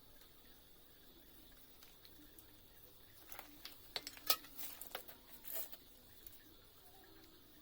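A handful of faint, sharp clicks and taps clustered around the middle, over quiet room tone.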